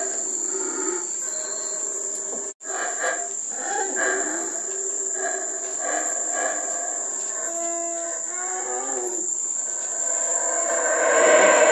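Yucatán black howler monkeys roaring in long, rough, drawn-out calls that swell again near the end, over a steady high-pitched drone of insects.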